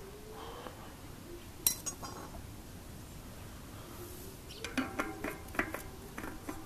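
Steel bicycle disc brake rotors clinking and ringing as they are handled: one sharp clink about a second and a half in, then a run of light clinks near the end as a SRAM Centerline X floating rotor is slid onto the centerlock hub's splines.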